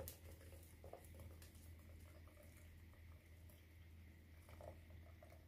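Near silence: a faint patter of hot milk trickling from a saucepan through a metal mesh sieve into a measuring jug, over a low steady hum.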